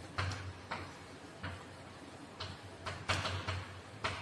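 Chalk writing on a blackboard: a run of short, irregular taps and scratches as the letters are formed, bunched closer together about three seconds in.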